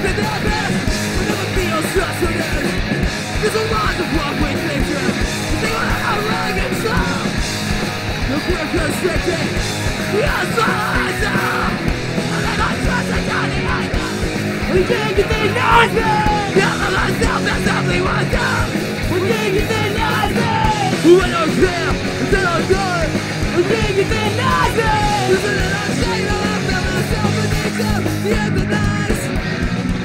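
Punk rock band playing a song live, loud and steady, full band with guitars and drums.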